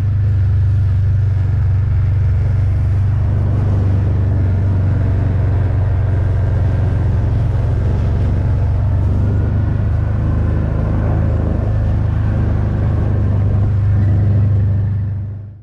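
A vehicle engine running loud and steady with a low drone, fading out at the end.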